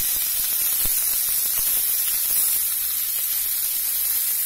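Flour-dusted carp steaks frying in hot oil in a pan: a steady sizzling hiss with a few faint pops.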